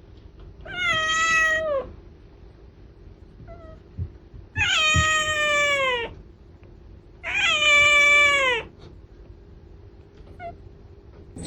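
A cat meowing: three long, drawn-out meows a few seconds apart, each sliding down in pitch at the end.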